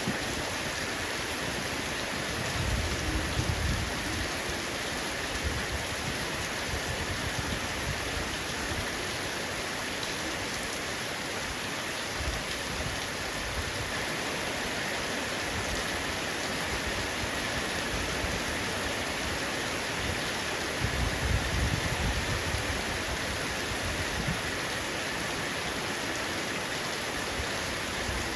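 Heavy rain falling steadily on a roof, an even hiss of raindrops. Low rumbles swell up twice, about three seconds in and again about twenty seconds in.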